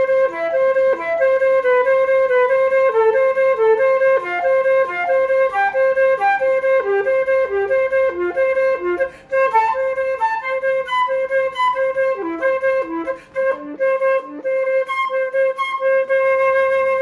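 Silver concert flute playing a fast finger exercise: a quick run of notes that keeps coming back to one repeated note, with short breaths about nine and thirteen seconds in.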